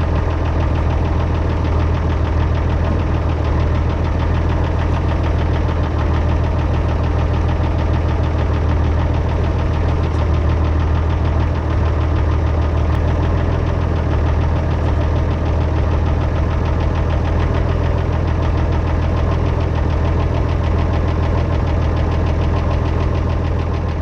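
An engine idling steadily, with a low, even running sound that doesn't change.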